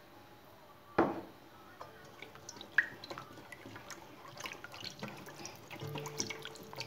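A silicone whisk beating a thin liquid mixture of milk, yogurt, egg and freshly added vegetable oil in an enamel bowl: soft sloshing and splashing with light, irregular ticks of the whisk against the bowl. A single knock about a second in is the loudest sound.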